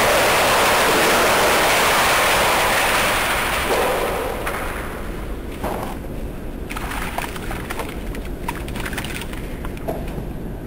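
Test water streaming in around a manhole frame and falling down inside the concrete manhole shaft, a steady loud splashing. About four seconds in it tapers off, leaving trickles and scattered drips.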